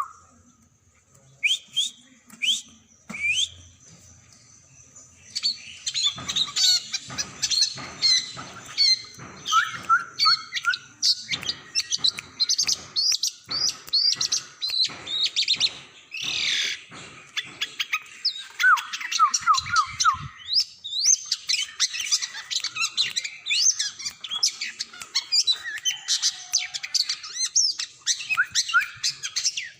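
Long-tailed shrike (cendet) singing. A few short separate calls come first, then about five seconds in it breaks into a fast, varied stream of chirps, trills and sharp notes, the mimicking song for which cendets are kept.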